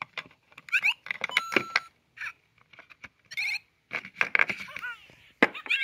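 LEGO Super Mario interactive figure playing electronic sound effects: short beeps, steady tones, a fast chirping jingle and falling-rising glides, mixed with sharp plastic clicks.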